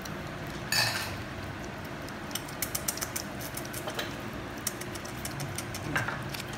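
An orange pignose cat licking a lickable treat from a squeeze tube: a run of small wet tongue clicks and smacks, thickest in the middle few seconds, with a short scratchy noise about a second in.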